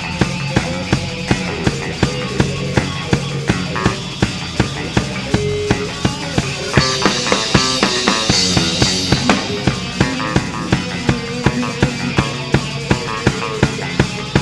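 Live rock band playing an instrumental passage: electric guitar over a steady drum beat of about three hits a second. The cymbals wash louder for a couple of seconds around the middle.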